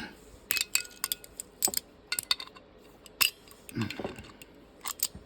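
Small hard parts and tools clicking and clinking as they are handled: about a dozen sharp, irregular clicks with short gaps between them.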